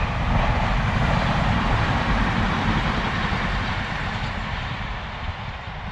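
A passing vehicle's steady rushing noise with a low rumble, loudest near the start and fading away.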